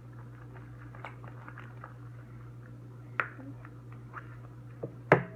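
Homemade slime being stirred and mixed: many small sticky squelching clicks, with a sharp knock about three seconds in and a louder one near the end, over a steady low hum.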